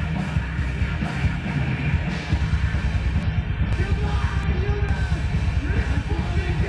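Loud, distorted heavy rock music with a fast, driving beat and guitars.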